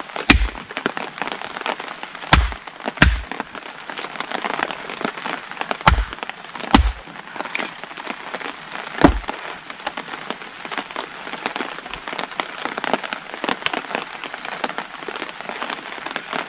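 An axe chopping small logs into kindling on a wooden stump: about six sharp chops in the first nine seconds, then only lighter knocks. Under it, a steady hiss of rain falling on the tarp.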